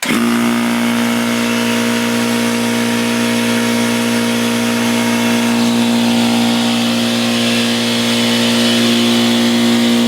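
Craftsman air compressor switching on abruptly and running with a loud, steady hum, on a test run of its rebuilt pump with a reinstalled connecting rod and an eccentric newly clamped to the shaft with a bolt. It runs evenly, growing slightly louder toward the end.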